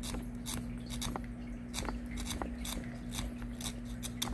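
Utility knife blade shaving the broken carbon tip of a fishing rod, a quick irregular series of short scraping strokes, about three a second. The tip is being whittled thin to fit into the top guide.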